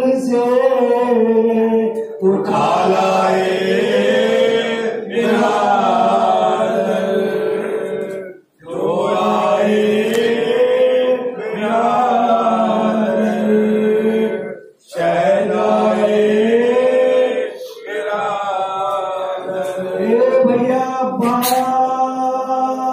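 Male voices chanting a noha, a Shia Muharram lament, into microphones. The voices hold long, wavering melodic phrases, broken by short pauses for breath about eight and fifteen seconds in.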